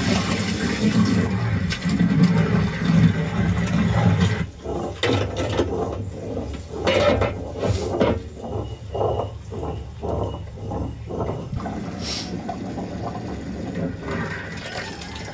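A large pot of mutton curry bubbling while it is stirred with a long ladle, then a run of knocks and scrapes from large aluminium cooking pots being handled, falling into about two a second near the middle.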